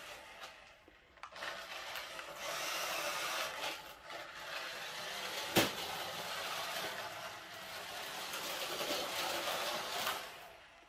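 Small electric drive motor and gears of a toy RC car whirring as it drives and spins its wheels on a slippery wooden floor, with brief pauses and one sharp click about halfway through.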